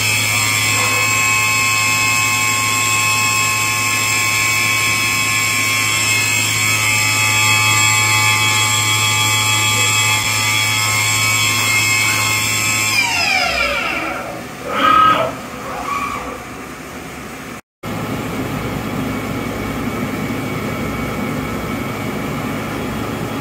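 Walter Helitronic Power CNC grinder running with a steady whine of many tones, which all glide down together about 13 seconds in as the machine spins down. A brief louder wavering sound follows, then a steady machinery hum.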